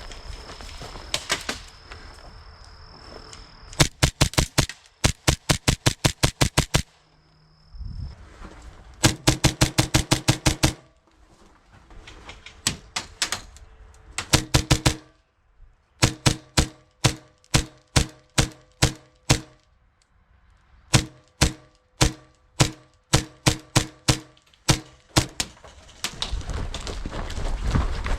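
HPA-powered airsoft pistols firing in repeated rapid strings, about four to six sharp shots a second, with short pauses between the strings. Near the end the shots stop and a rising rush of noise takes over.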